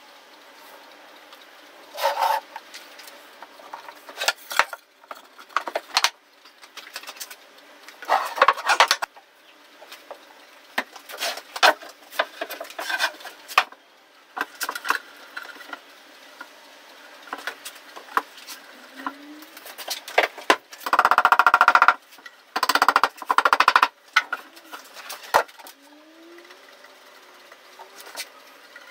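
Pine panels, rails and dowels being handled and fitted together during a glue-up: scattered wooden knocks and clatters, and one louder rasping stretch of about three seconds some two-thirds of the way in.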